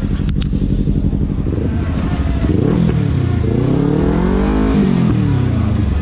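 Kawasaki Ninja 300's parallel-twin engine running steadily, then its pitch rises and falls twice as the bike is revved up and eased off through the gears. Two short sharp clicks just after the start.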